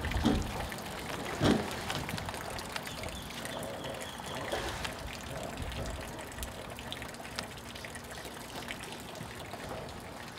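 Water splashing and sloshing as a large hooked stingray thrashes at the surface beside a dock, with a sharper splash about a second and a half in.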